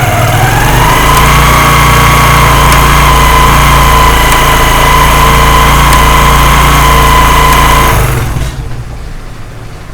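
Motorcycle engine running with the drive chain turning: a steady whine that rises over the first second and then holds, with a 'tak tak' knocking from the chain on the front sprocket, whose teeth the mechanic says have bent with wear. The sound drops away about eight seconds in.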